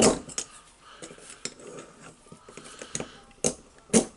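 Small metal parts clicking and clinking as a spring ring is worked down onto a rotary hammer's tool holder by hand, with sharper knocks at the start and twice near the end.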